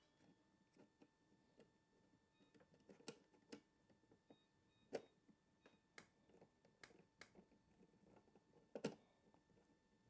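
Faint, irregular clicks and light taps of a small screwdriver driving the screws that hold the heatsink over an M.2 SSD on a motherboard, the strongest about halfway through and near the end.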